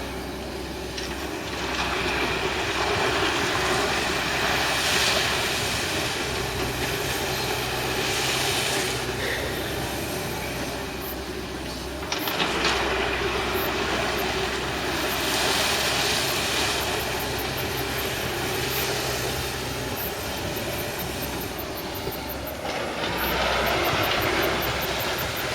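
Excavator working, its diesel engine running with a steady low hum. Every few seconds a louder rushing noise swells and fades as the machine works, with faint rapid high clicks near the end.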